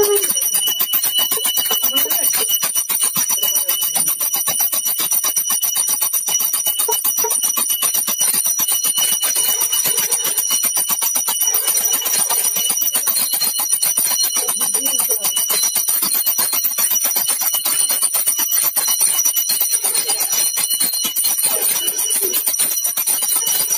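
Hand-held puja bell (ghanta) rung rapidly and without a break for the lamp offering (aarti), a dense, steady jangle of strikes with high ringing tones.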